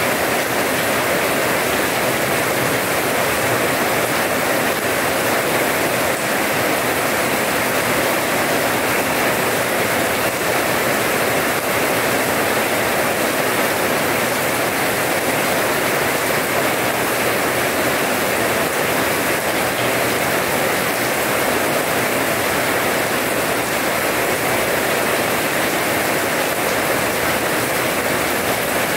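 Steady rain falling on a wet paved yard, an even hiss of drops splashing on the hard ground that never lets up.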